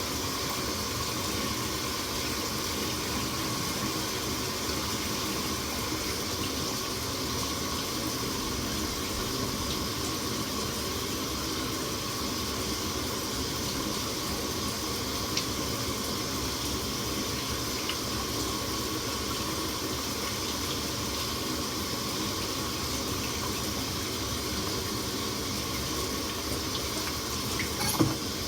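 Bathroom sink tap running steadily, with a shower running behind it. A short knock comes near the end.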